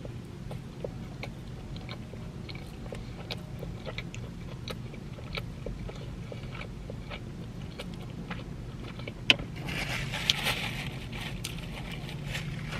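A person chewing a mouthful of pulled pork cheeseburger, with many small wet mouth clicks. Near the end there is a short rustle as a paper napkin wipes the mouth.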